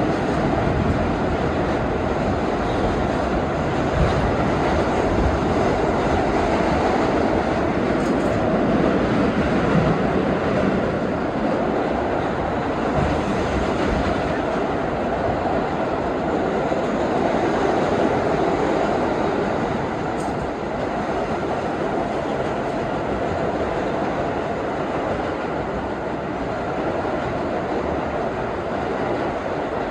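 R32 subway train running between stations, heard from inside the car: a steady rumble of wheels on rail, with a few faint clicks over rail joints.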